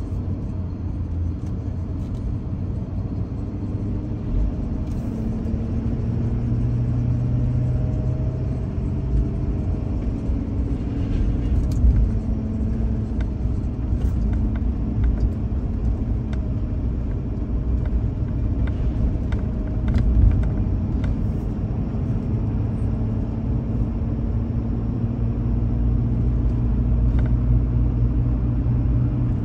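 Pickup truck towing a car-carrier trailer at highway speed: a steady engine drone and road rumble whose pitch shifts slightly as the speed changes.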